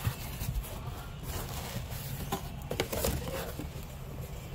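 Cardboard shipping box being opened by hand: flaps rustling and scraping, with a few sharp clicks and taps.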